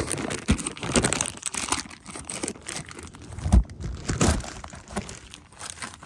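Plastic pouch crinkling and rustling as it is handled and searched, close to the microphone, with irregular knocks; the loudest is a thump about three and a half seconds in.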